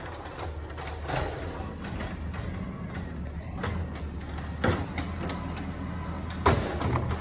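Garbage truck's natural-gas engine running steadily while its Amrep HX-450 automated side-loader arm lifts a recycling cart, tips it into the hopper and lowers it back down. Two sharp knocks stand out in the second half as the cart is dumped and set down.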